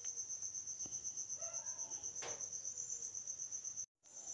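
Cricket chirping steadily, a high, even pulsing of about eight chirps a second, with a brief dropout near the end.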